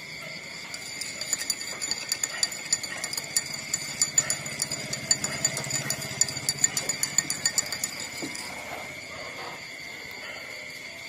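Young puppies suckling at their mother: a quick, irregular run of small wet clicks and smacks that stops about three quarters of the way through, over a steady high drone.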